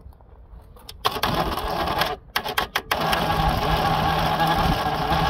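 Fiat 127's 100GL engine being cranked by its new starter motor without catching. The cranking starts about a second in, stutters and stops briefly, then runs on steadily from about three seconds in.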